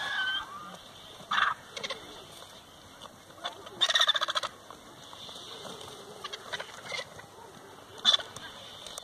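Vultures squabbling at a carcass, giving short harsh rattling calls in separate bursts: one near the start, one about a second and a half in, the loudest about four seconds in, and a brief one near the end.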